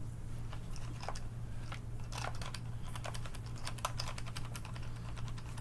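A run of uneven plastic clicks, several a second, from a spray bottle's trigger being pumped while it fails to spray, over a steady low hum.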